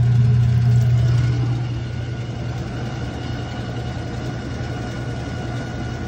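Whirlpool washing machine with an agitator running, a steady low hum that eases off slightly about two seconds in. It carries a rattling, grinding noise that the owner thinks comes from the pump.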